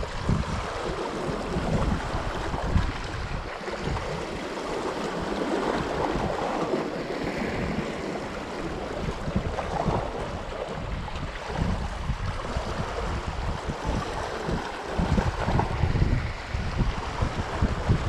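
Strong wind buffeting the microphone in irregular gusts, over small waves washing against shoreline rocks.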